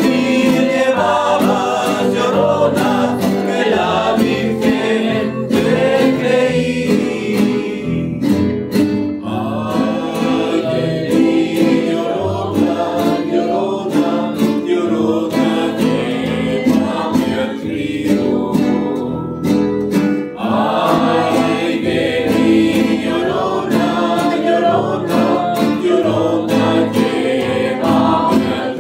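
Live Veracruz folk music: several voices singing together over strummed guitars.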